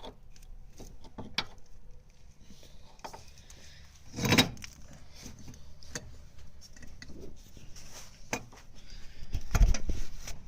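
Scattered metal clinks and knocks from hand work on a car's front wheel hub and axle, with one loud clank about four seconds in and a few heavy thumps near the end.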